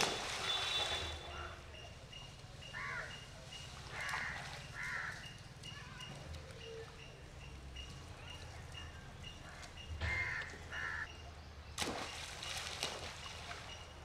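Monkeys plunging into river water: a loud splash at the start that churns on for about a second, and another splash about twelve seconds in. A few short harsh calls sound in between.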